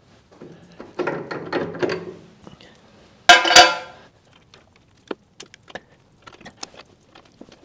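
Steel hitch parts being worked loose as a tractor's mechanical top link is taken off the three-point hitch: scraping and rattling, then one loud ringing metal clank a little over three seconds in, followed by scattered small clicks.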